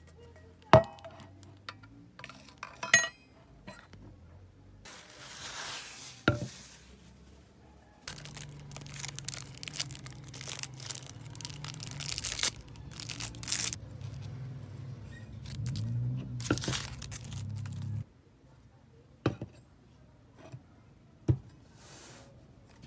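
Stainless steel vacuum-insulated tumblers and their clear plastic lids being handled: a few sharp clinks and knocks, then about ten seconds of plastic film crinkling and tearing as the protective wrap is peeled off, and near the end two light taps as a mug is set down.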